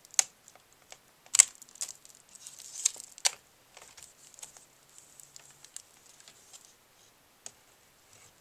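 Laptop display panel and its cables being handled by hand: scattered sharp plastic clicks and taps, the loudest about a second and a half and three seconds in, between stretches of light crinkling and rustling.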